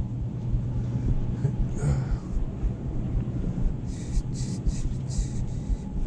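Low rumble and body-movement noise on a chest-mounted GoPro Hero 6 Black as the wearer walks, with a few short rustles about four to five and a half seconds in.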